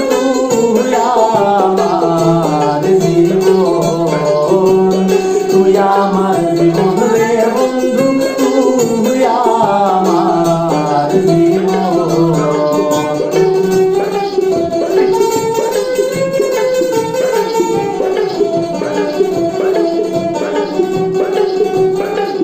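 Mandolin playing a Bengali folk melody in quickly changing notes, layered over sustained lower accompaniment.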